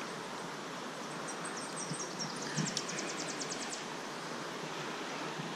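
Steady rush of a shallow, fast-flowing creek. A small bird sings high thin notes about a second in, running into a fast trill of about a dozen notes that stops near the middle, with a soft thump about halfway through.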